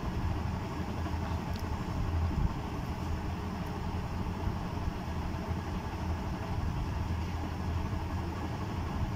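Steady low hum and rumble of background machinery or traffic, with a faint click about a second and a half in.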